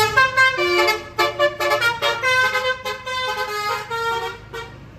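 Indonesian bus's musical multi-note air horn playing a quick tune of changing notes, stopping about four and a half seconds in.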